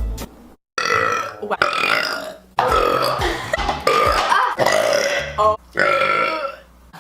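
A woman burping: several long, loud burps in quick succession.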